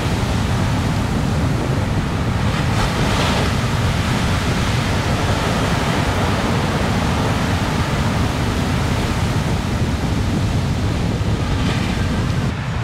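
Ocean surf rushing and breaking, with wind rumbling on the microphone. A brighter hiss swells briefly about three seconds in and again near the end.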